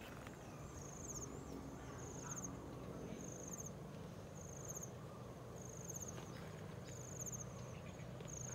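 An insect chirping: short, high-pitched, buzzy chirps repeating about once a second, over a faint low outdoor rumble.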